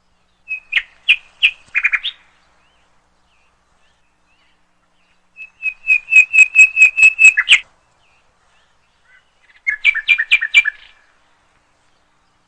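A bird singing: three short phrases of rapid, repeated high chirps separated by pauses of a few seconds, the middle phrase the longest and loudest.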